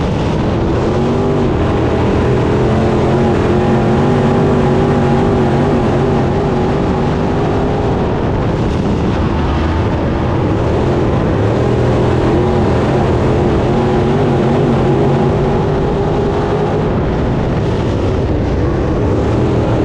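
IMCA Modified dirt-track race car's V8 engine running hard under racing load, heard from inside the cockpit. Its pitch rises and falls as the driver gets on and off the throttle through the corners.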